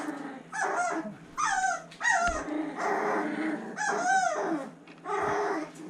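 Young boxer puppy, about three and a half weeks old, whining and whimpering in a series of short high cries that rise and fall in pitch, four or five in all, while being held and posed.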